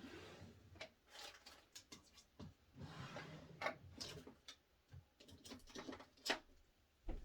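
Faint handling noise: soft rustling with a scattered series of small clicks and taps, as hair, tools and clips are handled.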